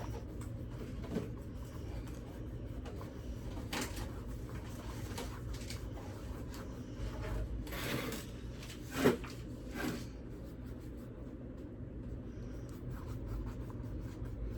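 Soft rubbing and handling noises of pumpkin painting, brush and paint pots being worked, with a few light knocks, the loudest about nine seconds in, over a low steady hum.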